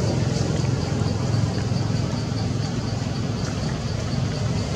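A motor running steadily with a low rumble, and faint high ticks repeating several times a second over it.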